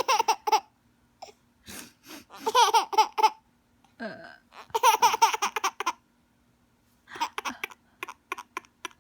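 A baby laughing in several bursts, with short pauses between them; he is laughing at his mother's sneezes.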